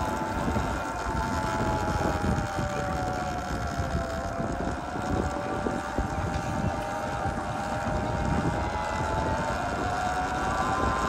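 Sur-Ron electric dirt bike's motor whining while riding. Its pitch falls as the bike slows about four seconds in and climbs again near the end, over a low wind rumble on the microphone.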